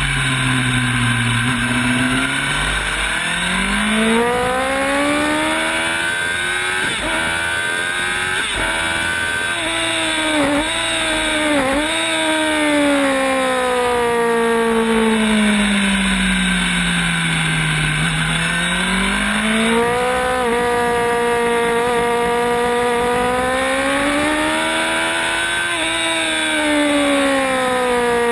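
Sport motorcycle engine at track speed, heard from on the bike. Its pitch climbs as it accelerates through the gears, dips briefly at a couple of shifts, falls away as it slows for corners and climbs again, with wind rush underneath.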